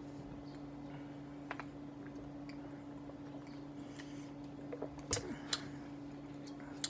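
Drinking from a plastic water bottle: a few faint clicks, then two sharper ones about five seconds in, over a steady low hum.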